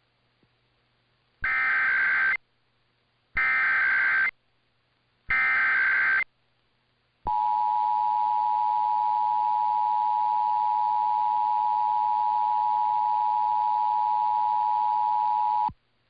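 Emergency Alert System test opening: the SAME digital header, three one-second bursts of warbling data tones, followed by the EAS two-tone attention signal (853 and 960 Hz), held steady for about eight seconds before it cuts off.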